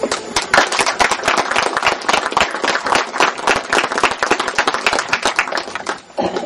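Crowd applauding: many people clapping together, dying away about six seconds in.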